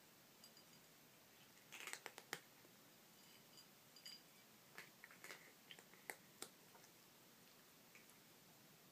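Cats crunching dry kibble: faint, scattered crunches in small clusters, the loudest about two seconds in.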